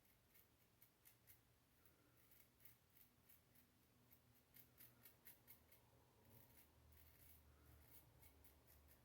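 Faint scratchy scraping of a Gillette Sheraton safety razor with a Treet Platinum blade cutting short stubble through lather on an against-the-grain pass, in short irregular strokes.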